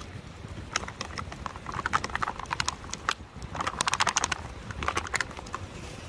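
An irregular clatter of sharp clicks and crackles, thickening into two quick rattling runs about two and four seconds in.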